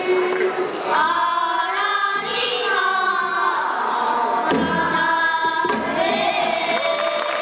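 A group of children singing pansori together, holding long notes, with a rising slide between notes about six seconds in.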